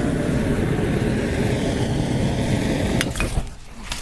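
Punctured aerosol can venting its gas as a burning jet, like a flamethrower: a steady rushing noise that dies away about three seconds in.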